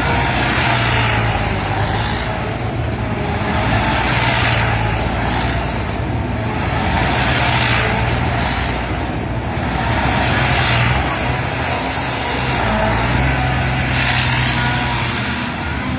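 Combine harvester running on a systems test run: its engine holds a steady low hum while a rushing mechanical noise swells and fades about every three seconds.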